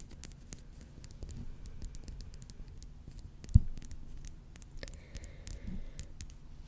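Close-miked ASMR trigger sounds: scattered soft clicks, scratches and rustles at the microphone, with one low thump about three and a half seconds in.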